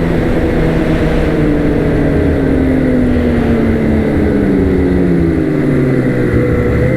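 Two-stroke Ski-Doo snowmobile engine running along the trail, its pitch sinking slowly as the sled eases off, then picking up slightly near the end.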